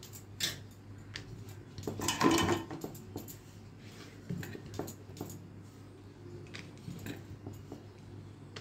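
Wooden rolling pin rolling puri dough on a rolling board, with scattered light knocks and taps as the pin and dough are handled, over a steady low hum. A brief, louder sound comes about two seconds in.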